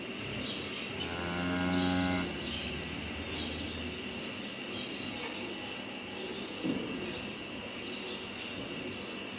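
A Holstein cow gives one low moo lasting about a second, a second in. Small birds chirp briefly now and then, and a single knock sounds about two-thirds of the way through.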